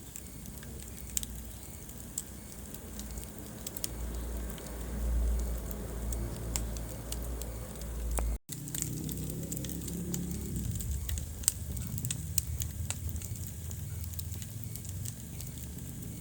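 Wood fire crackling in a fireplace: scattered sharp pops and snaps over a low rumble of the flames. The sound cuts out for an instant about halfway through.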